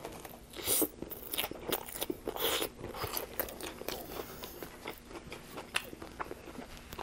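Close-up biting and chewing of a Subway Italian BMT sandwich on flatbread: crunchy, wet mouth sounds in irregular bursts, strongest in the first few seconds.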